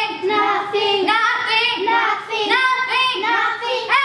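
A girl singing in a string of short, held notes that bend in pitch.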